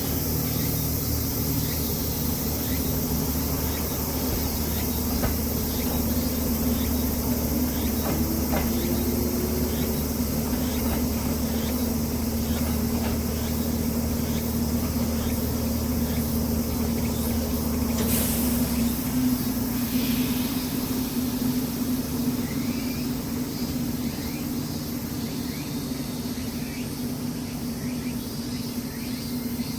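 Hakone Tozan Railway 1000-series electric train humming steadily. A deeper drone in the hum cuts off about two-thirds of the way through, while a higher hum carries on, with insects calling in the background.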